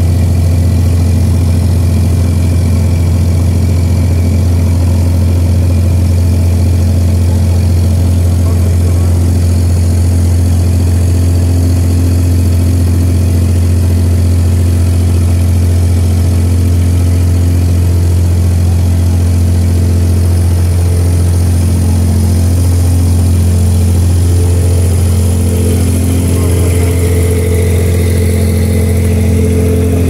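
A loud, steady low drone of a running engine, with higher humming tones that shift in the last few seconds.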